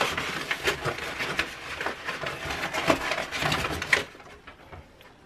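Crumpled brown packing paper rustling and crackling in a cardboard box as a wrapped object is dug out of it; the rustling stops about four seconds in.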